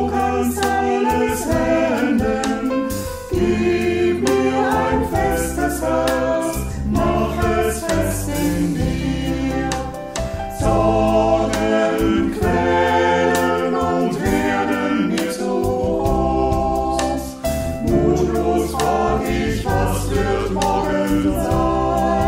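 A small mixed group of men's and women's voices singing a song together, accompanied by grand piano and a drum kit with cymbal hits.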